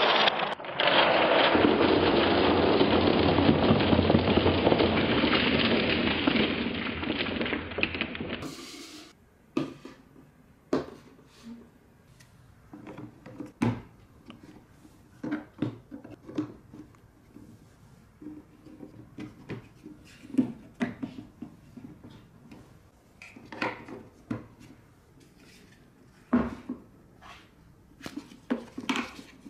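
Marbles pouring out of a toy dump truck's tipping bed into a shallow tray: a dense rattling rush that thins out and stops at about eight seconds. After that come scattered clicks and knocks as plastic track pieces and building blocks of a marble run are fitted together and set down.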